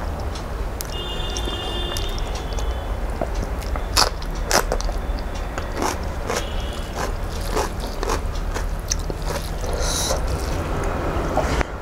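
Close-miked eating by hand: wet chewing and lip smacks of rice and curry, a string of short sharp clicks. About ten seconds in, fingers mix rice on the plate. A steady low hum runs underneath.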